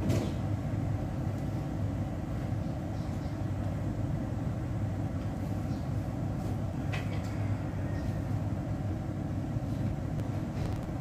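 Steady low rumble in the background, with a sharp click right at the start and another about seven seconds in.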